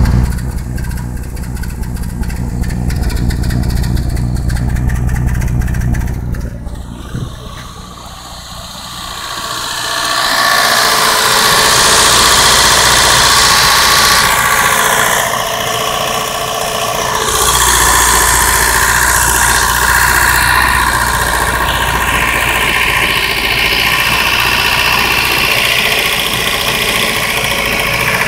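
A 1992 Mazda 323's 1.6-litre B6 four-cylinder engine running with a bad misfire. The sound dips about eight seconds in, then comes back louder and noisier.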